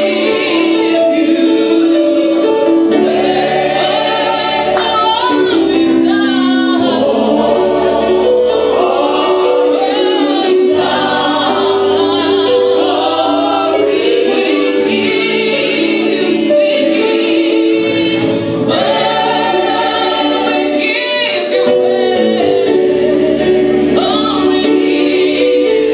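A female worship team sings a gospel song through microphones: a lead singer backed by two harmony singers, over sustained low chords.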